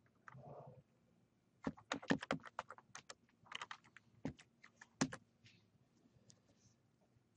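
Faint typing on a computer keyboard: a quick run of key clicks lasting about three and a half seconds, ending with one harder keystroke.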